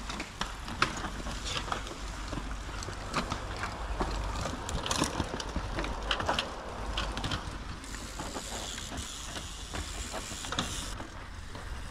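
Mountain bikes riding past one after another through a dirt bend: knobby tyres scrubbing and crunching on the loose trail, with many short clicks and rattles from the bikes' drivetrains and frames.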